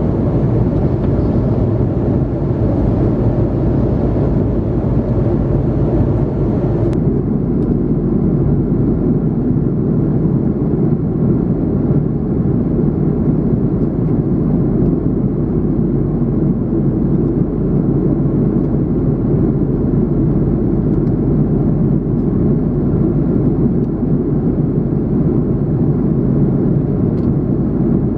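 Cabin noise of an Airbus A330-300 in flight: a steady rush of air and engine drone from its two Pratt & Whitney PW4168A turbofans. The upper hiss drops away suddenly about seven seconds in, leaving a deeper, even drone.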